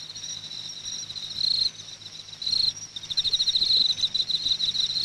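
Crickets chirping in a steady high trill that swells several times into short pulsing bursts.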